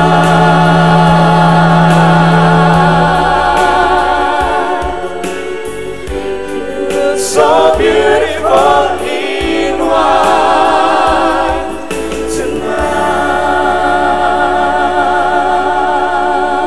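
Several singers performing a song over music, holding long notes with vibrato; about seven seconds in the voices break into a quick run of changing pitches, then settle back into held notes.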